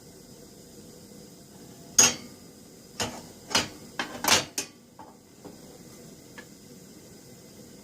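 Metal clanking: one sharp clank about two seconds in, then a quick run of five more clanks and clatters over the next two and a half seconds, over the steady hiss of a gas torch flame.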